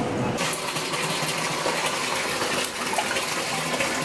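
Tap water running into a bathtub, starting suddenly about half a second in and then running steadily.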